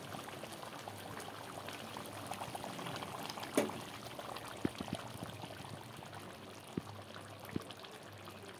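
Chicken curry simmering in a steel kadai: soft, steady bubbling with small crackles, one louder pop about three and a half seconds in and a few sharp ticks after it.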